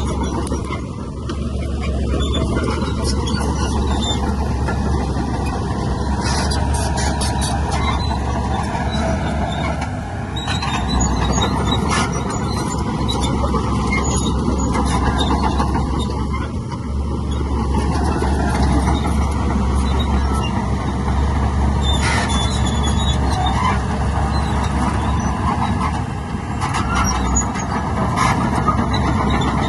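Heavy diesel earthmoving machinery running steadily, with scattered metallic clanks and high squeals over the engine noise.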